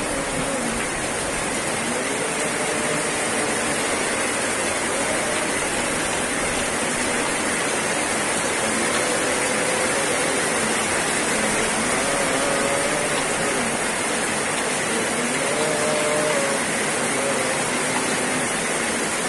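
Heavy rain pouring down as a steady, dense hiss, with faint wavering tones rising and falling beneath it.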